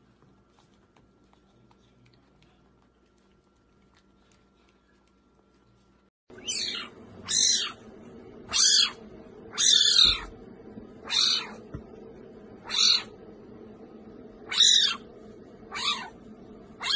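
A kitten calling: nine loud, high-pitched cries about a second apart, each falling in pitch. They begin suddenly about six seconds in. Before them there is only faint ticking while a puppy licks an ice-cream cone.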